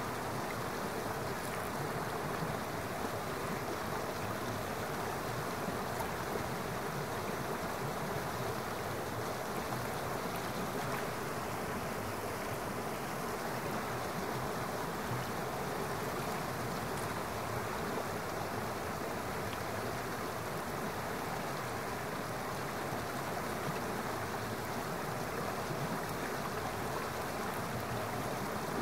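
Waterfall and stream: falling water rushing steadily over rocks, an even wash of noise without breaks.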